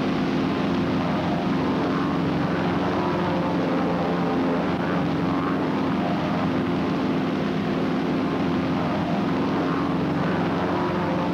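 A single-engine propeller airplane's radial engine and propeller droning steadily in level flight. The source is a North American SNJ trainer's Pratt & Whitney R-1340 Wasp.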